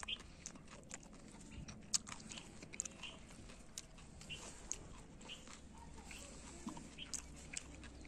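Faint crunching steps and scattered sharp clicks on a gritty concrete rooftop, with a few short high peeps now and then over a faint low hum.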